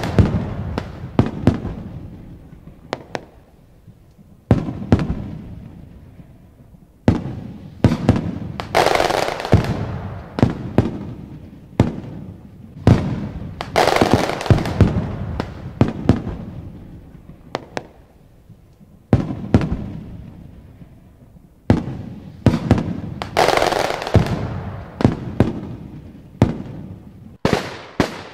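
Aerial firework shells bursting in quick succession: many sharp booms, some in close clusters, each trailing off in a long rolling echo.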